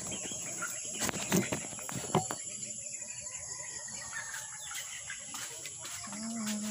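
Steady high-pitched buzz of insects in an outdoor ambience. There are a few sharp knocks about one and two seconds in, and a low drawn-out pitched sound starts near the end.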